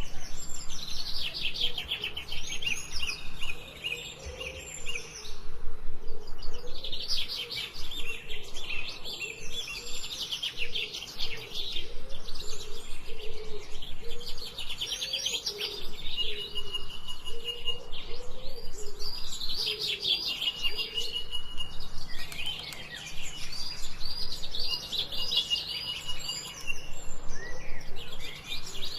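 Forest songbirds singing in phrases of fast, rapidly repeated chirps a few seconds long, with short pauses between them. In the second half, held whistled notes come in several times.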